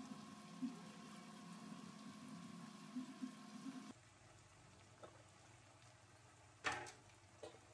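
Faint sizzle of whole potatoes and sliced onions frying in oil in a kadai, over a steady low hum. About halfway through it drops abruptly quieter, and a single light knock comes near the end.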